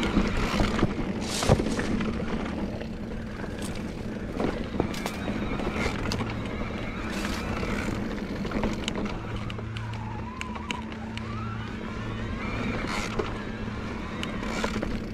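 Bosch CX mid-drive motor of an e-mountain bike running under load on a trail climb, its pitch wavering in the second half, over tyre noise on dirt with scattered sharp clicks and knocks from the bike and trail.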